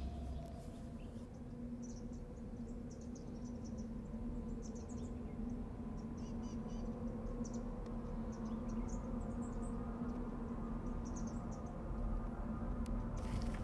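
Outdoor ambience of scattered, high-pitched wildlife chirps in short clusters over a steady low hum, with a few sharp clicks near the end.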